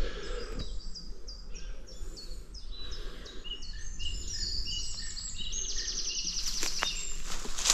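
Woodland birdsong: several small birds chirping and whistling short falling phrases, with a fast high trill about five and a half seconds in, over a steady low rumble. A few sharp clicks come near the end.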